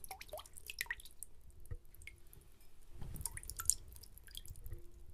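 Quiet, scattered water drips: small plinks that rise in pitch, mixed with faint clicks, at an uneven pace.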